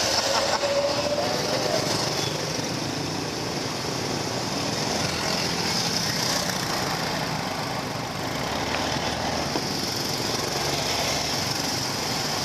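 Small motorbike engine running steadily while riding through traffic, with road and traffic noise around it.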